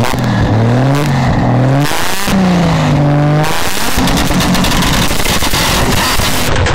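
2JZ inline-six of a roughly 1000 hp Lexus IS300 revving up twice, then held on a two-step launch limiter from about three and a half seconds in, with a rapid string of exhaust pops and crackles as it tries to shoot flames.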